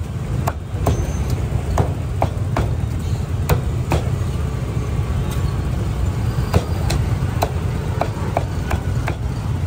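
Cleaver chopping roast meat: a dozen or so sharp chops at an uneven pace, with a pause of about two seconds in the middle, over a steady rumble of street traffic.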